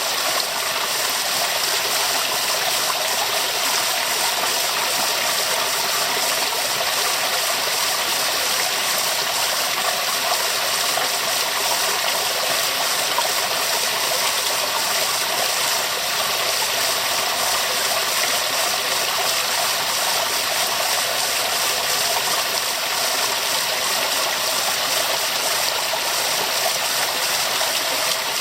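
Waterfall: falling water rushing steadily, with no change in level.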